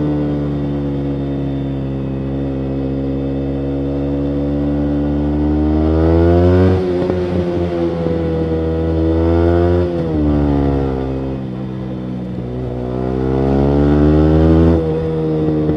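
Yamaha MT-125's single-cylinder 125 cc four-stroke engine through a full Akrapovic exhaust, heard from on board while riding. The engine note sinks at first, then climbs under throttle and falls sharply three times, about seven, ten and fifteen seconds in, as the rider changes gear.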